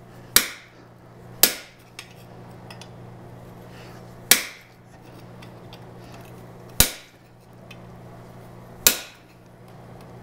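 Hand hammer striking a hot chisel on a red-hot steel horseshoe over the anvil, cutting through the hot metal. There are five sharp metallic blows, irregularly spaced one to two and a half seconds apart, each with a short ring, over a faint steady low hum.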